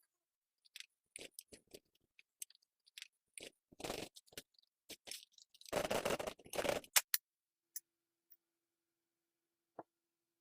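Hand work on a small model car's parts: scattered clicks and taps, a short scrape about four seconds in and a longer, louder scraping crunch around six to seven seconds, then near quiet with a faint steady hum.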